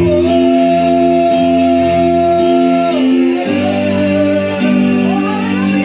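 Church music on an electronic keyboard: sustained chords under one long held high note for about three seconds. The chord changes about halfway through, and a sliding, rising melody line follows near the end.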